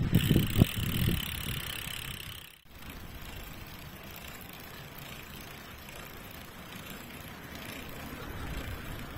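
Steady rush of wind and tyre noise from a bicycle riding along a paved road, heard from a camera on the bike, with a brief drop-out about two and a half seconds in.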